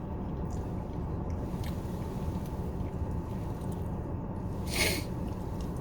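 Quiet chewing and eating sounds over a steady low rumble inside a car, with a few faint clicks and a brief hiss a little before the end.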